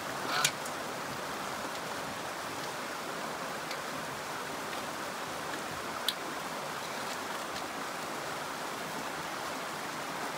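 A stream running steadily over rocks, with a few light clicks and knocks from a folding camp chair's wooden frame being fitted together, the sharpest about six seconds in.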